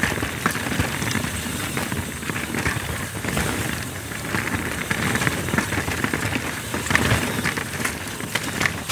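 Mountain bike rolling over a rough trail: a steady rush of tyre and wind noise with frequent small rattles and clicks from the bike.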